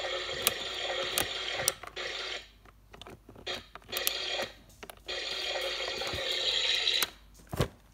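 Electronic sound effect from the Our Generation toy doll bathtub, set off by turning its faucet handle: a tinny, hissing sound from a small built-in speaker that plays in three stretches with short gaps, with sharp clicks from the plastic handle.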